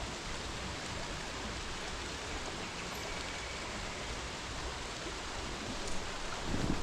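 Rain falling and stream water running: a steady, even hiss. A louder, uneven noise starts near the end.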